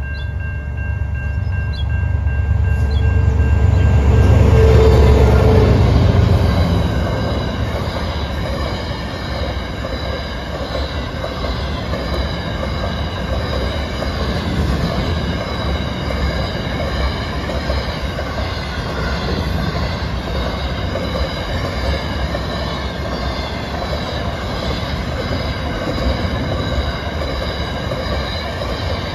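Two diesel freight locomotives pass close by, loudest about four to six seconds in. A long train of empty steel grain hopper wagons then rolls steadily past with an even rumble and clatter, with thin high steady tones running through the noise.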